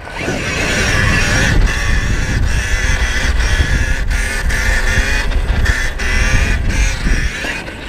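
Riding noise from a KTM Freeride E electric dirt bike on a dirt track: a steady rush of wind on the camera mic and tyre noise, with no engine sound from the electric motor.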